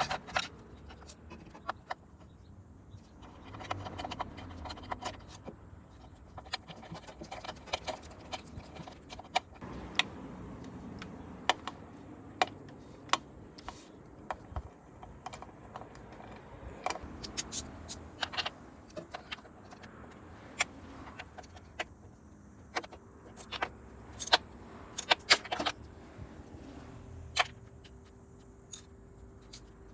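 Irregular metallic clicks and clinks of hand tools and small metal parts being handled, some in quick clusters.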